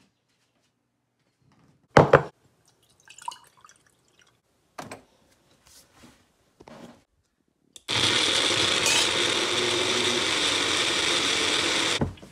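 A sharp knock about two seconds in and a few faint clicks and taps, then a countertop blender running steadily for about four seconds, blending a smoothie, and stopping abruptly.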